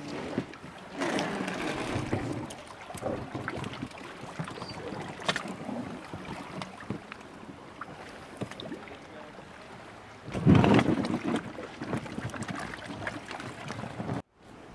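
Handling noises from an inflatable dinghy tied alongside: irregular knocks, rubbing and rustling as its rope is worked and someone climbs into it. There is a louder noisy burst about ten seconds in, and the sound cuts out briefly near the end.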